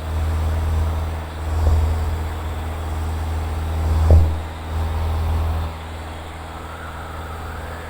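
Van's RV-7's engine and propeller droning steadily at climb power, with one short knock about four seconds in.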